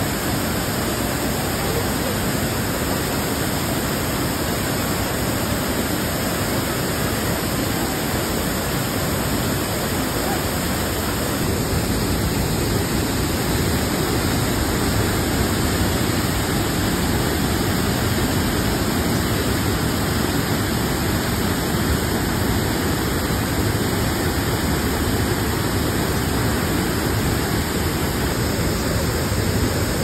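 Waterfall rushing steadily as white water pours down rocky steps, a little louder from about twelve seconds in.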